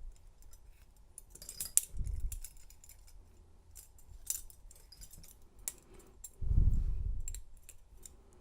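Steel handcuffs being picked with a bent key-ring tool: light metallic clicks and jingles from the cuff and chain throughout, with dull handling bumps about two seconds in and a longer, louder one near the end.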